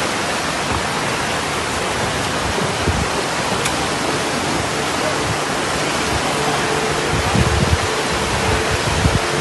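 Fast-moving floodwater rushing through a street in a loud, steady roar of water, with a few low thuds.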